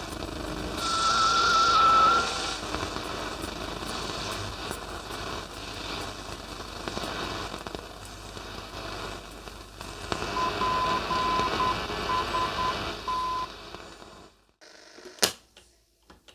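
Telefunken Opus 8 valve radio's loudspeaker giving AM static and crackle between stations, with a brief wavering whistle early and a run of short beeps later on. Near the end the noise cuts out suddenly, and a single sharp click follows.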